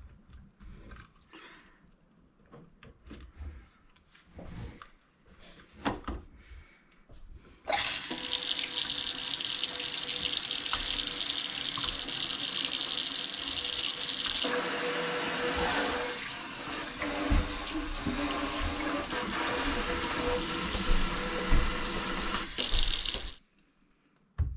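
Newly installed kitchen faucet running water into the sink, turned on about eight seconds in and shut off sharply near the end, a test run of the new faucet. The flow changes sound about halfway through, after a few faint knocks and handling clicks at the start.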